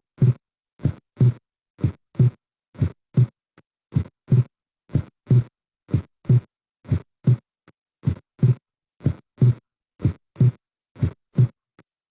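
Recorded heart sounds at the pulmonary area, played on a loop: a lub-dub about once a second, with the second heart sound (S2) split into two small close sounds.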